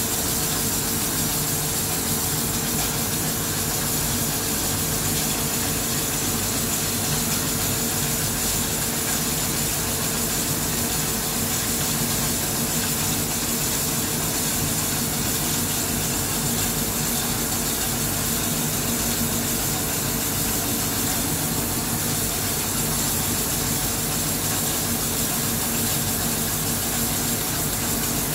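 A HüllerHille NBH 170 machining center rough-boring a hole with an URMA roughing boring head on a CNMG turning insert, taking a cut of about 3 mm per side. Coolant sprays onto the cut with a steady hiss, and a steady machine hum runs under it.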